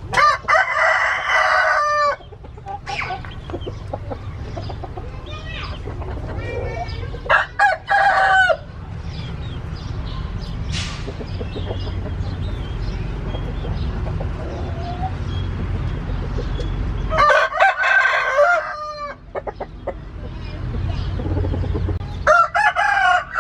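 Rooster crowing four times, each crow lasting a second or two: near the start, about eight seconds in, about seventeen seconds in, and at the end, with softer clucking in between.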